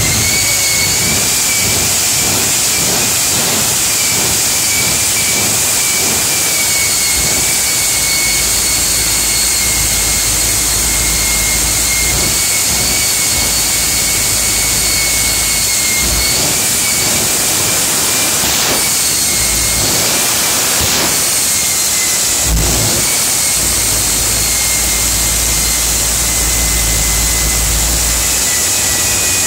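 Jet engine of a jet-powered Kenworth show truck running steadily: a loud rush with a high, even turbine whine. There are a few short bangs about two-thirds of the way through.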